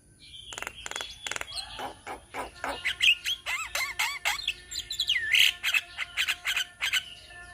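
Several Javan mynas calling together: a rapid, busy jumble of sharp clicks, squawks and whistled notes that slide up and down in pitch.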